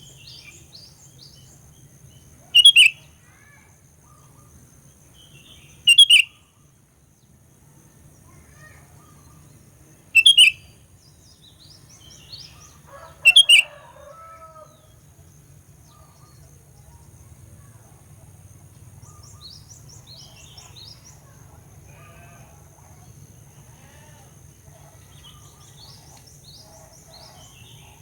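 Sooty-headed bulbul (kutilang) giving four short, loud calls a few seconds apart in the first half, with fainter chirping throughout.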